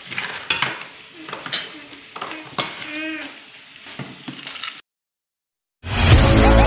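Spoons and forks clinking against bowls, plates and plastic containers at a meal table: a scatter of sharp clinks, with a brief voice about three seconds in. The sound cuts out at about five seconds, and loud music starts near the end.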